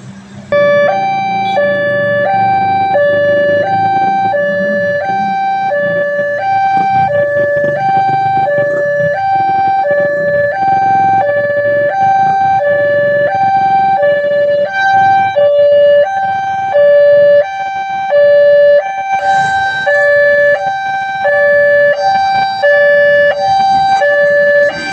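Railway level-crossing warning alarm switching on about half a second in, then sounding a steady two-tone electronic alternation of a low and a high note, each about half a second long. It is the signal that a train is approaching and the barrier is closing. A low rumble lies underneath at first, and a hissing rush joins near the end.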